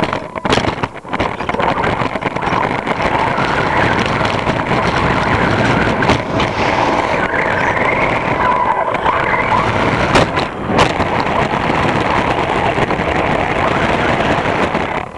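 HPI Blitz RC short-course truck with a brushless electric motor, heard from a camera mounted on it: a motor whine that rises and falls with throttle over a dense rattle of chassis and tyres, with a few sharp knocks along the way.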